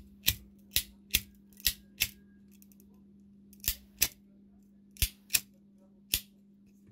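Small metal pocket lighter being worked by hand: about ten sharp metallic clicks in uneven groups, with a pause of a second and a half near the middle. A faint steady low hum runs underneath.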